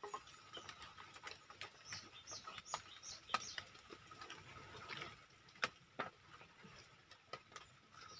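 Faint chirping of small birds, short high calls repeating irregularly over a thin steady tone, with a few light clicks scattered through.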